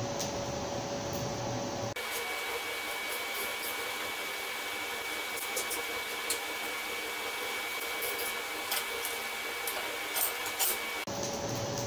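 Electric blower on a coal forge, running steadily with a whirring hiss and a faint whine, the air keeping the fire hot. A few light metal clinks come near the end.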